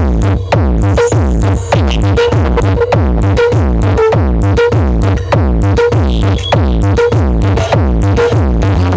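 Loud electronic dance music played through large stacked subwoofer cabinets, dominated by a heavy deep bass line with a steady beat about twice a second, run at full volume as a bass test.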